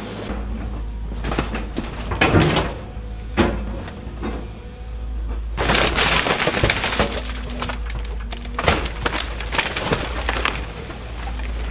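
Case excavator's diesel engine running steadily while its bucket tears into a wooden outbuilding: boards splintering and cracking with metal siding clattering, a few crashes in the first seconds, a long burst of breaking about six seconds in, then scattered snaps.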